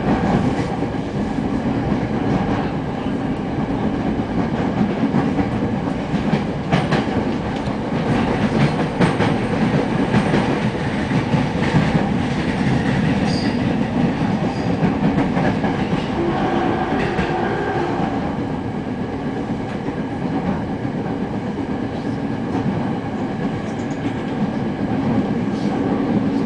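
JR East 209-series electric train running, heard inside motor car MoHa 209-2152: a steady rumble of wheels on rail with sharp clicks from rail joints. A short steady tone rises out of the noise about two-thirds of the way through.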